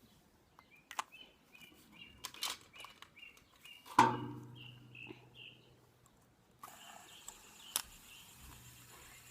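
Small birds chirping: a string of short chirps, with a few sharp clicks, the loudest about four seconds in. A steady hiss comes in after about six and a half seconds.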